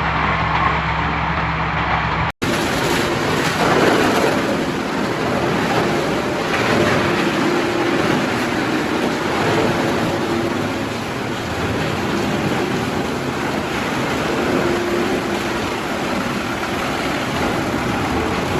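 Heavy-duty wood chipper running: a steady low machine hum, then, after a sudden cut about two seconds in, a loud dense rushing noise that goes on evenly.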